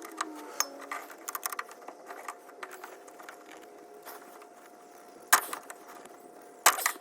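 Hand tools clinking and knocking against metal parts of a truck's transfer case shifter linkage, a run of small clicks with two loud sharp knocks near the end. A faint steady hum runs underneath.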